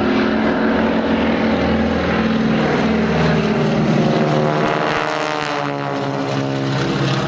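Two Boeing Stearman biplanes with radial engines droning as they fly past in formation. The tone sweeps and shifts about five seconds in as they pass overhead.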